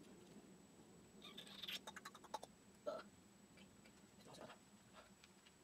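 Near silence, with a few faint rustles and light clicks from about a second in: hair being wound and handled around a curling wand.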